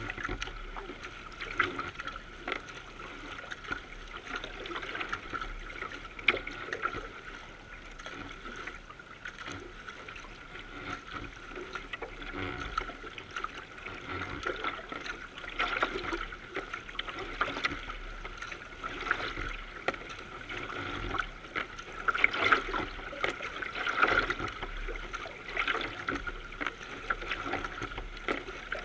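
Water rushing and splashing along the bow of a moving racing canoe, heard close to the waterline, with irregular small splashes.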